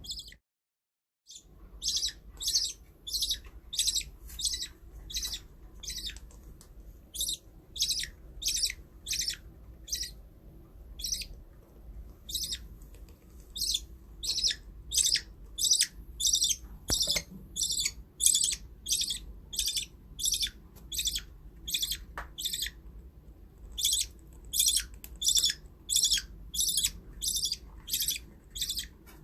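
Baby budgie chirping over and over in short, high calls, roughly two a second, after a silent gap of about a second at the start.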